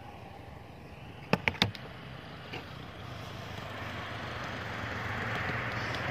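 A car approaching round the bend, its tyre and engine noise growing steadily louder over the second half. Two or three sharp clicks come about a second and a half in.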